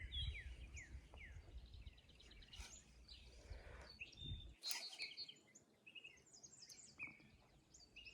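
Faint birdsong outdoors: many short chirps and falling whistles from small songbirds, with a single soft tap a little past halfway.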